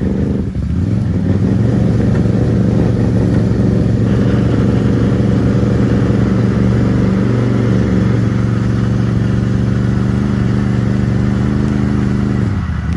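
An ATV engine runs at steady, raised revs for about twelve seconds, then drops back near the end.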